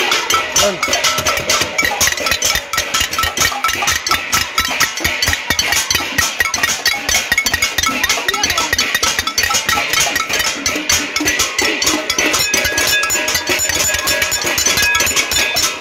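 Saucepans being beaten rapidly with hard utensils: a dense, continuous metallic clanging of many strikes a second, with ringing overtones. This is the sound of a casserolade, a pot-banging protest.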